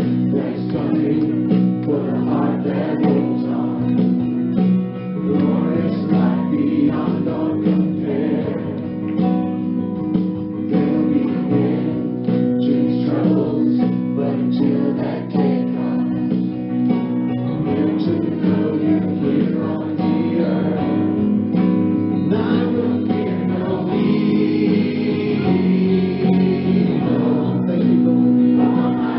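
Christian worship music playing: a choir singing over guitar with a steady, full sound.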